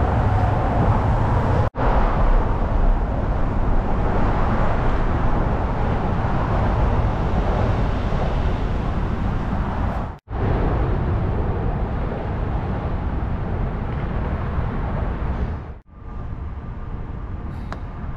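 Steady, dense rushing noise, heaviest in the low end, with no distinct events; it drops out abruptly three times, where separate clips are cut together.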